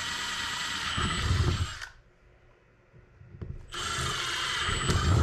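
Cordless drill with a twist bit boring through the plastic lid of a hard rifle case, whining steadily in two runs. The first stops about two seconds in; the second starts just under four seconds in.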